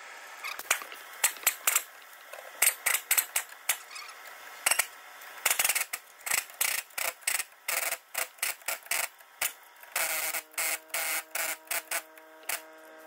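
Impact gun run in many short bursts, running up the nuts on a leaf spring's U-bolts. In the last three seconds a steady whine runs under the bursts.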